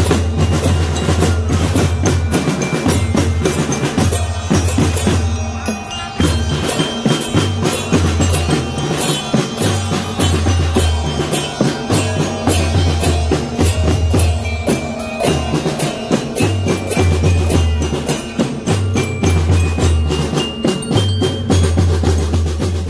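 Drum band playing a sholawat tune: rapid snare-drum strokes and rolls over heavy bass-drum beats, with a high bell-like melody on top. It plays loud and without a break, dipping only briefly about five seconds in.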